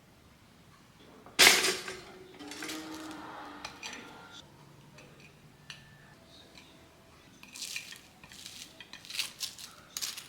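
Kitchen dishes and cutlery being handled: a loud clatter about a second and a half in, then clinking and scraping, and another run of quick clinks and knocks near the end.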